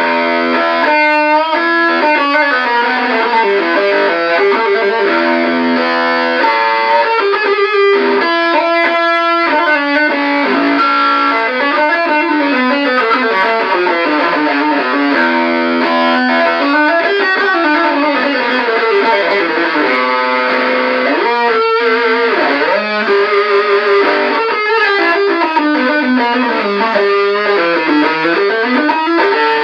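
Electric guitar played through a 1458 dual op-amp Electro-Harmonix Muff Fuzz circuit into a 1959 Guild 66-J amp. It plays fuzzed single-note lead lines without a break, with fast runs and pitch slides up and down the neck.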